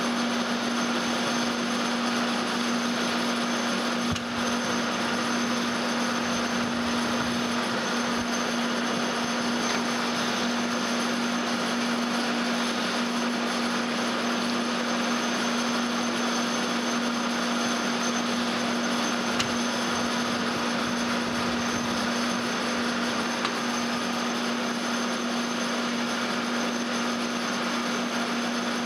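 Metal lathe running steadily while a single-point tool cuts an 11-threads-per-inch thread on a 5/8-inch cold-rolled steel rod. It is a steady machine hum with one strong low tone.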